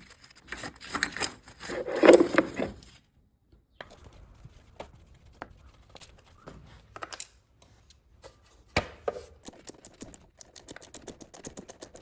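Hand tools working on a scooter's carburetor to undo the throttle cable clamp. A rubbing, scraping rustle comes in the first few seconds, then scattered small clicks and taps, with a run of quick even ticks near the end.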